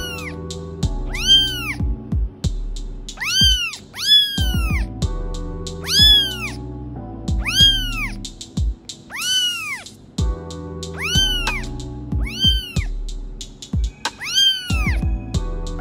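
Very young tabby kitten meowing again and again, about ten high-pitched calls that each rise and then fall in pitch, over background music.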